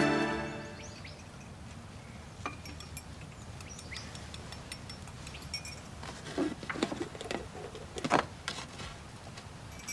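Background music fading out in the first second, then a quiet room with a few small clicks and rustles, the loudest about eight seconds in, as a paper greeting card is picked up and handled.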